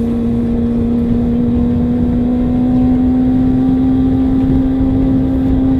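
Kawasaki ZZR 400 inline-four motorcycle engine at cruising revs, its pitch rising slowly as the bike gently gains speed, over steady wind rush.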